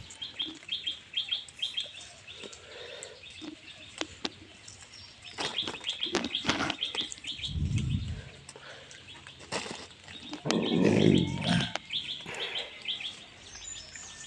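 Small birds chirping in repeated short series throughout. Scattered rustles and two dull, heavier thuds, about halfway and three-quarters of the way in, from cow-dung manure being put into the planting pit by hand.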